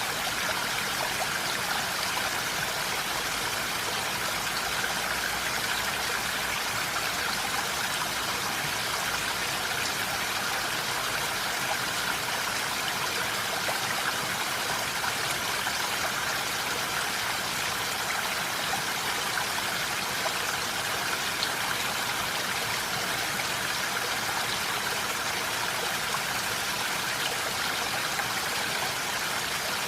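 Steady rain falling in a forest: an even, unbroken hiss of water.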